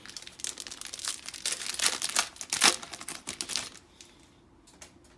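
Foil trading-card booster-pack wrapper crinkling as it is handled, a dense crackle for about three and a half seconds, then a couple of faint ticks.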